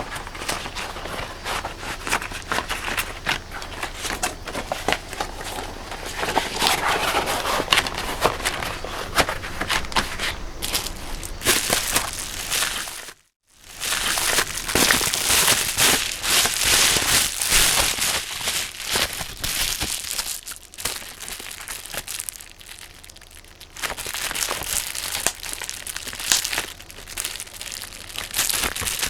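Thick natural-rubber long gloves being pulled on and rubbed, the rubber crinkling and squeaking. After a brief silent break about 13 seconds in, bubble wrap crinkles and crackles in the gloved hands.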